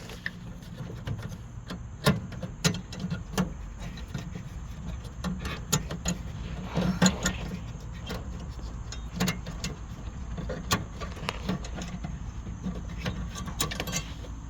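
Scattered clicks and light knocks of plastic parts being handled at a headlight's low-beam bulb housing, reached through the wheel-well access cover, over a low steady hum.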